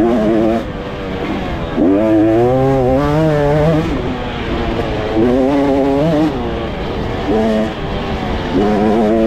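Small pit bike engine revving hard in about five bursts of throttle, its note wavering and climbing in each, and dropping between them as the throttle is rolled off.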